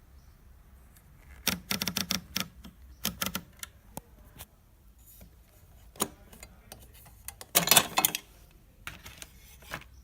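Hermes 3000 manual portable typewriter being worked, its typebars and mechanism clacking in irregular bursts of sharp strikes with pauses between. The densest and loudest flurry comes a little under eight seconds in.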